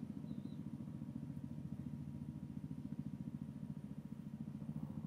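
A motor running steadily: a low rumble with a fast, even pulse.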